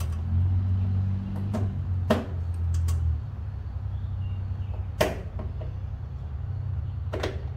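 A few sharp clicks as the key of a Craftsman Pro riding mower is tried, over a steady low hum that drops in level about three seconds in. The engine does not crank because the battery is dead.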